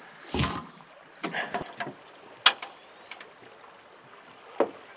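A few knocks and thumps of handling in an aluminum fishing boat, the sharpest a single loud click about two and a half seconds in, over faint wind and water noise.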